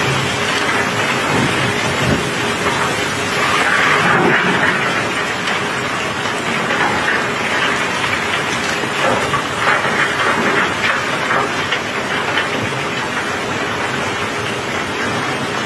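Cobblestones sliding and tumbling off a barge in a continuous rattling, clattering flow, mixed with steady rain falling on the wet steel deck.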